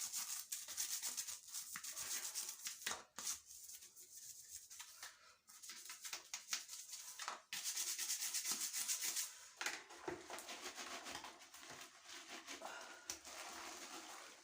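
Rapid back-and-forth scrubbing on the outer face of an electric shower head around its water holes, in spells: hard for about three seconds, easing off, then picking up again past halfway.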